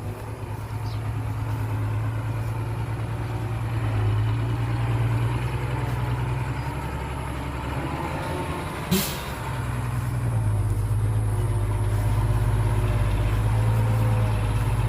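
Heavy diesel machinery engine running steadily, a low drone that eases slightly and then grows louder again about ten seconds in, with one short sharp hiss about nine seconds in.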